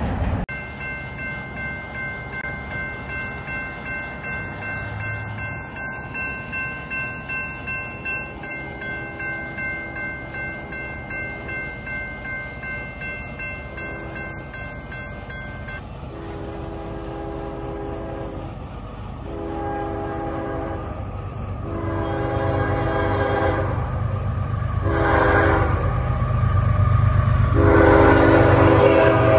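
A bell rings with a quick, regular pulse, then stops about halfway through, while an approaching train's multi-chime air horn sounds a series of long blasts with a short one between, the long-long-short-long grade-crossing signal. The train's rumble grows louder near the end.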